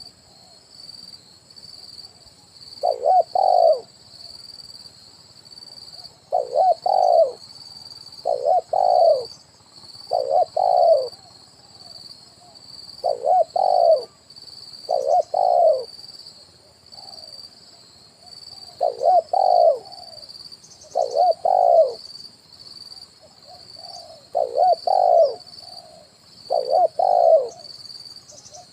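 Spotted dove (tekukur) cooing its song again and again, a short phrase of a few coos roughly every two seconds, sung in the 'kuk 1' style that trappers play as a lure call. A steady high-pitched buzz runs underneath.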